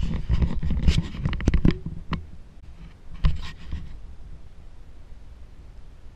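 Handling noise from fingers rubbing and tapping on the camera: a scratchy low rumble with several clicks over the first two seconds, then two single clicks, then only a steady low rumble.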